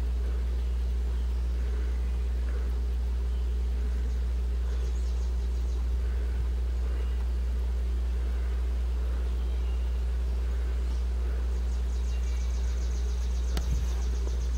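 A steady low hum, as of a motor or electrical equipment running, holds level throughout. A faint high pulsing trill comes in briefly around five seconds in and again in the last few seconds, and a single sharp click sounds shortly before the end.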